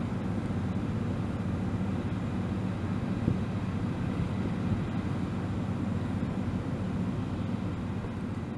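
Boeing P-8A Poseidon's twin CFM56-7B turbofans running at taxi power as the aircraft rolls past, a steady low rumble.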